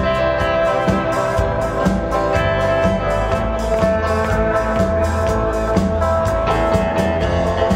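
Live instrumental 1960s-style guitar rock: two electric guitars, electric bass and a drum kit playing together over a steady beat.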